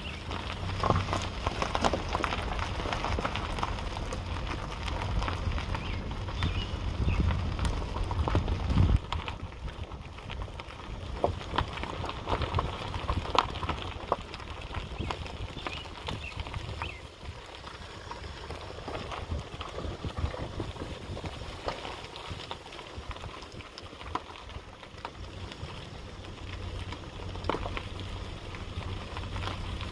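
Footsteps through grass and gravel, with irregular ticks and rustles. A low rumble of wind on the microphone runs for about the first nine seconds, stops, and returns near the end.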